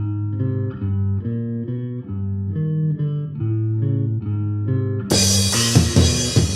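Black metal song: a melodic passage of clean picked guitar notes over bass, then about five seconds in the full band comes in with drums and cymbals.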